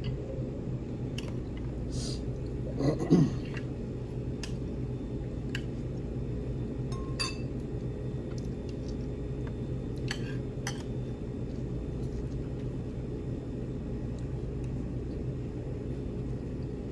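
Scattered light clinks of cutlery against plates and bowls during eating, over a steady low room hum. About three seconds in there is a short, louder sound.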